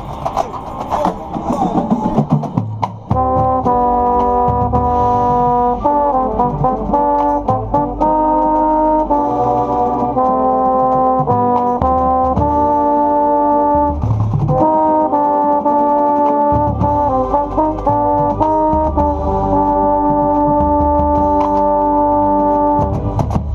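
Marching baritone horn played right at the microphone: a line of held notes broken by quick runs, with other brass in the band playing along.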